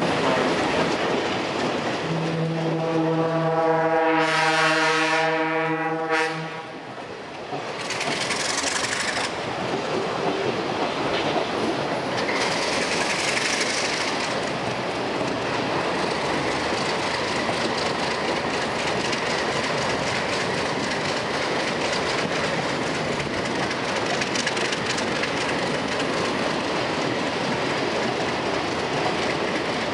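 A train horn sounds one long blast about two seconds in, lasting about four seconds. After it, a stainless-steel Budd-Mafersa passenger car, pulled by an ALCO RS-3 diesel-electric locomotive, rolls steadily along the rails with wheel and track noise.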